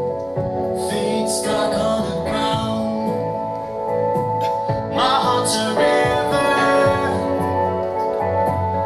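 Live band playing a song, with guitar and a singing voice.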